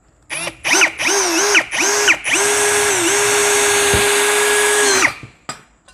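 Dekton DK-ID2140MKT brushless cordless drill driving a self-drilling screw into a steel block. It starts with about four short trigger pulses, then runs in a steady whine for nearly three seconds that dips briefly under load, and stops abruptly.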